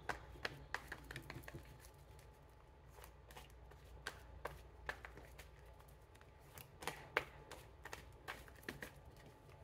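Tarot deck being shuffled by hand: faint, irregular clicks and soft slaps of cards, a quick run of them in the first second and a half, then more scattered.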